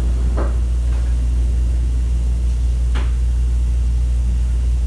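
Steady low hum, with two faint clicks about half a second in and about three seconds in from small thermometer parts being handled.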